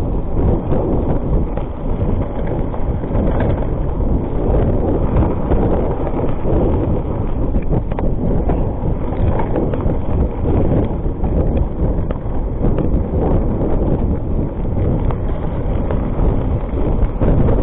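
Heavy wind buffeting on the camera's microphone over the rattle and rumble of a Rockrider ST 520 mountain bike riding fast down a rough gravel and dirt track, with many small knocks as the tyres and fork take the bumps.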